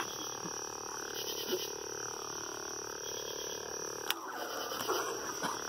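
Two heavy-grade stunt lightsaber blades strike once with a sharp crack about four seconds in, followed by about a second of rough noise. Under it runs a steady chirring and pulsing of night insects.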